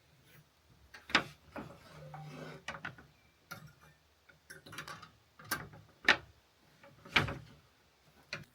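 A series of irregular clicks and knocks, the loudest about a second in, about six seconds in and a little after seven seconds in.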